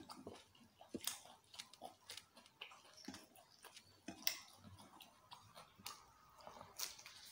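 Faint eating sounds: chewing with irregular sharp, crunchy clicks, along with fingers picking food out of a glass bowl.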